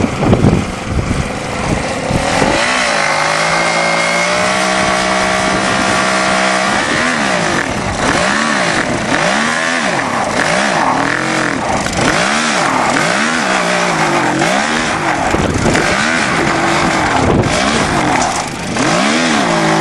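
Small engines of a go-kart and a garden tractor running hard under load in a tug of war. The note holds steady at first, then from about a third of the way in rises and falls repeatedly, roughly once a second, as they strain against each other.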